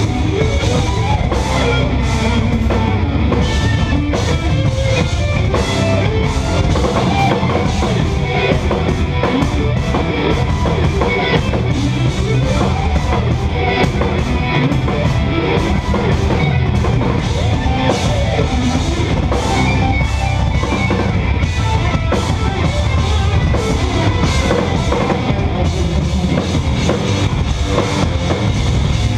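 Live instrumental progressive metal: eight-string electric guitar and a drum kit playing loud and dense, with fast, busy drumming.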